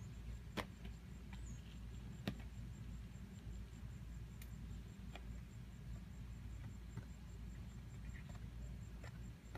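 A few sharp clacks of skates landing hops on a concrete driveway, the two loudest about half a second and two seconds in, over a low steady rumble and a faint pulsing high tone.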